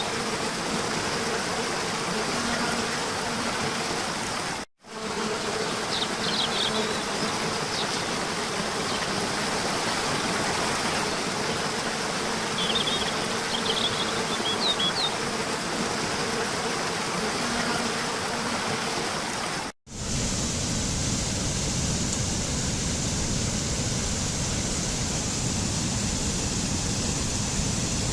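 Waterfall rushing steadily, with birds chirping now and then. The sound cuts out briefly twice, and after the second break, about 20 seconds in, a different, heavier and more even waterfall rush takes over.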